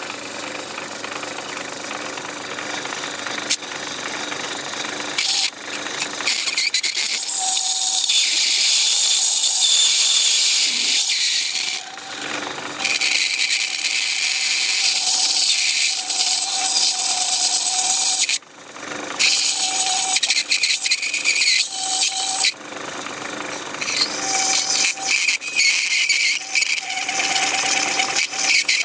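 Metalworking lathe motor running with a steady hum while a needle file is held against the spinning workpiece. From about five seconds in, the file makes a series of long, high-pitched scraping hisses, with short breaks between them.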